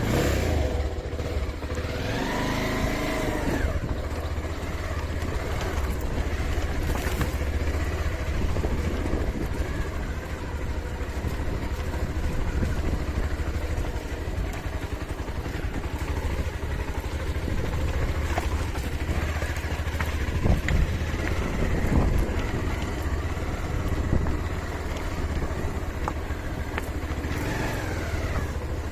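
Motorcycle being ridden on a rough trail, its engine running steadily with a few rises and falls in pitch, under heavy low wind rumble on the microphone.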